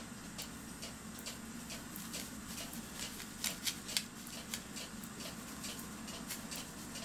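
Crinkling and crackling of a thin sheet of copper metal leaf as it is handled, with a few louder crackles about three and a half to four seconds in.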